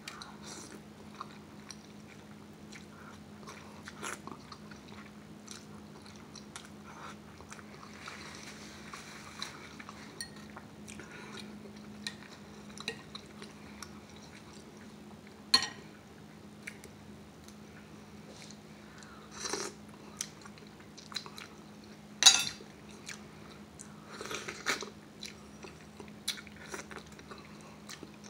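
Close-up eating sounds: slurping and chewing ramen noodles and mussels, with wet mouth clicks and a few loud sharp clicks. A steady low hum runs underneath.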